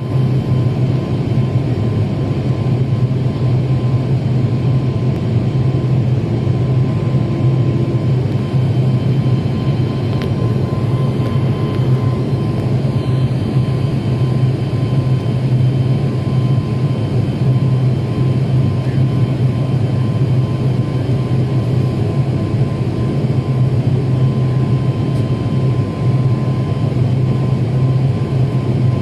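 A high-wing turboprop airliner's engines running steadily, heard from inside the cabin while the aircraft holds on the runway before the takeoff roll. The sound is a loud, even drone with a strong low hum and a faint steady whine above it.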